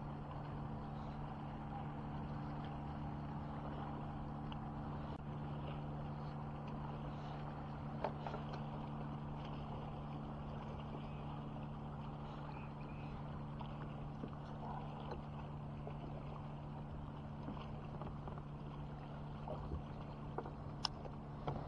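Steady low hum of a small motor, with a couple of light knocks about eight seconds in and again near the end.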